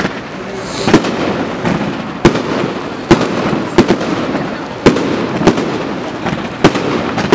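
Fireworks display: a string of about eight sharp bangs from aerial shells bursting, roughly one a second, over a steady background of noise.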